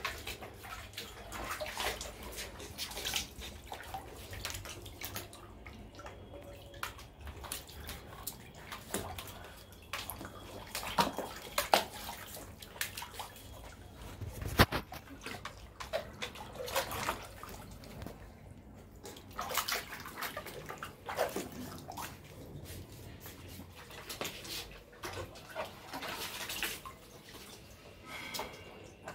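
Water splashing and sloshing in a plastic tub as a husky puppy paws at it and dunks its muzzle, in irregular bursts. A single sharp knock comes about halfway through.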